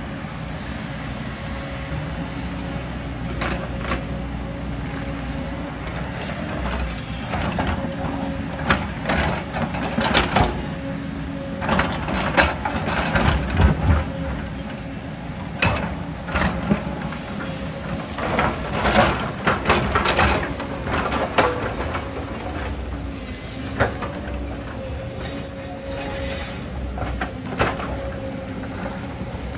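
Tracked hydraulic excavator's diesel engine running steadily with a constant whine, while its steel bucket digs into rocky rubble: a string of loud clanks, knocks and stone-scraping clatter through the middle, easing off near the end.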